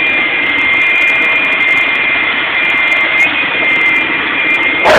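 Corded electric leaf blower running steadily at full power: a loud rush of air with a steady high whine from its fan. A short sharp sound cuts through near the end.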